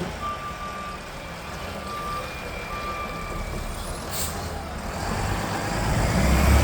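Garbage truck's reversing beeper sounding three times, then stopping; a short air-brake hiss about four seconds in, then the engine getting louder near the end as the truck pulls away.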